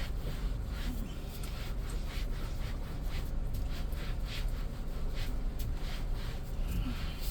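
A cloth rubbing over a steering wheel in short back-and-forth wiping strokes, cleaning it with degreaser solvent, over a steady low rumble.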